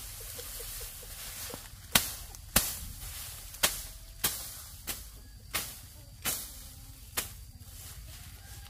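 A blade chopping through lemongrass stalks: about eight sharp strikes, a little under a second apart, starting about two seconds in.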